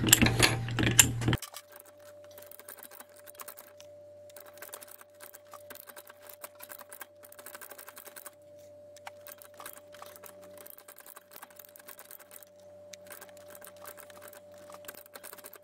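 Ratchet of an HFS TAR-100 manual pipe threader clicking rapidly and faintly as it cuts threads on black iron pipe, the sound sped up, over a steady faint hum. It is louder in the first second or so.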